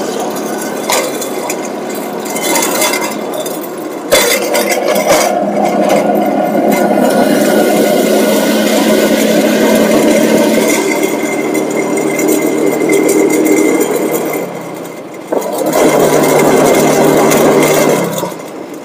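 Tuk-tuk's small engine running with a steady, rattly drone as it drives along a city road. There is a sharp knock about four seconds in and a brief drop in level shortly before the end.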